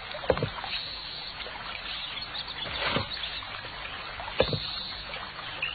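Gentle river water trickling and lapping, with a few soft knocks along the way and a short bird chirp near the end.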